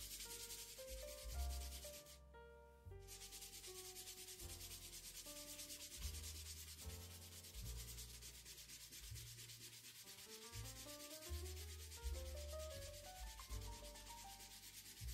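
Steady abrasive sanding on the cleaver's steel, broken off briefly about two seconds in, over soft background music.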